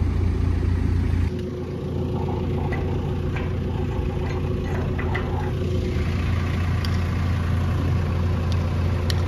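Diesel engine of a site machine running steadily at idle. It changes character about a second in, and a few light metallic clicks come over the hum.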